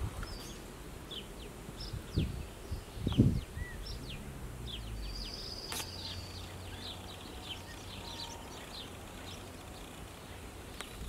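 Small birds chirping with many short, quick calls over a faint steady outdoor background. Two low thumps come about 2 and 3 seconds in, the second the loudest sound.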